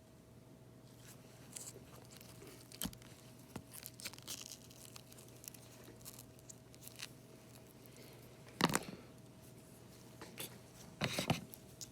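Hands working with tools and parts on a repair bench: scattered light clicks and short rustles, a sharper knock about nine seconds in, and a short clatter near the end, over a faint steady hum.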